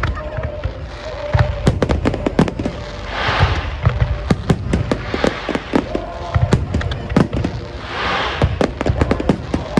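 Aerial fireworks display: rapid sharp cracks and deep booms of bursting shells. Spells of crackling hiss come about three and eight seconds in.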